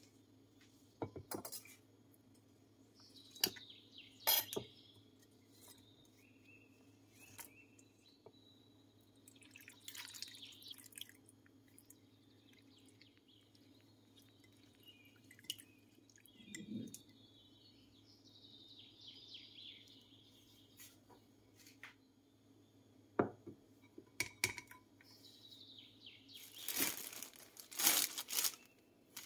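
Raw potato slices being rinsed by hand in water in a glass bowl: splashing and scattered clicks of slices against the glass, over a faint steady hum. Near the end a thin plastic bag crinkles, the loudest sound here.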